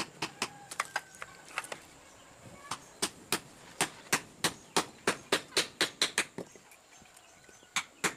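Small hammer tapping repeatedly on a rosewood golok handle and its metal ferrule as the handle is fitted. Sharp taps come in a few scattered strikes, then a quick run of about four a second, and then a few more near the end.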